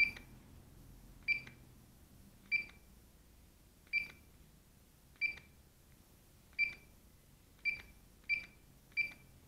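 9XR radio-control transmitter giving a short, high key beep at each button press as its menu screens are paged through: nine beeps, about one every second and a bit, coming closer together near the end.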